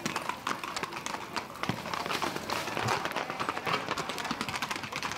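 Horses galloping through a burning brushwood bonfire: hooves striking the ground amid a dense, irregular crackle of burning branches.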